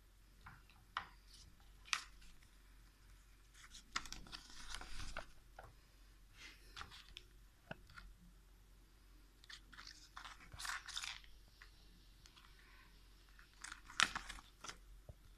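Power bank and its packaging being handled: scattered sharp clicks and taps, with short rustling, crinkling bursts about four seconds in and again around ten seconds.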